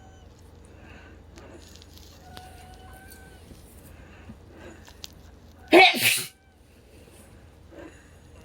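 Wheezing breaths: each faint breath carries thin, steady whistling tones at several pitches, the sign of narrowed airways. About six seconds in comes one loud, short burst of breath, like a sneeze.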